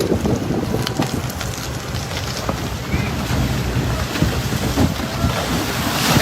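Wind buffeting the microphone in gusts over a steady rush of outdoor noise.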